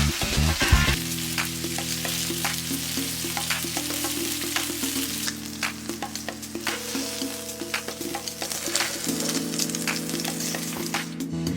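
Food frying and sizzling in a hot pan, with frequent short clicks and scrapes of stirring. Steady held background music tones run underneath.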